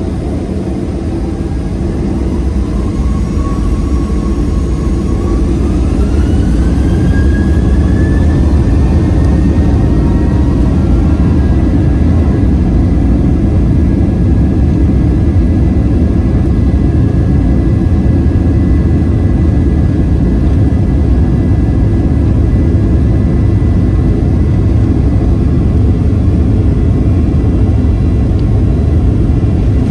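Boeing 737-800's CFM56-7B jet engines spooling up to takeoff thrust. A whine rises in pitch over the first several seconds as the roar grows louder, then both hold steady at full power.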